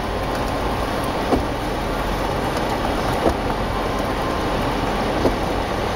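Jeep Wrangler JK Unlimited driving on a snow-covered trail: a steady drivetrain and tyre rumble, with a single short knock about every two seconds.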